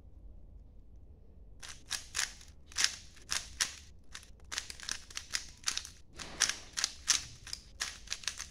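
A plastic 3x3 speed cube being turned rapidly by hand: quick runs of sharp clicks and clacks from its layers snapping round, starting about a second and a half in.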